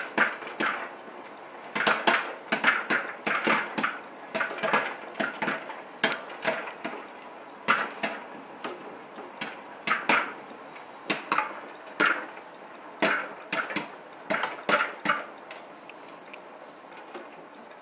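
Popcorn kernels popping inside an electric dome popcorn popper: many sharp, irregular pops, sometimes in quick clusters, thinning out and stopping after about fifteen seconds as the batch finishes popping.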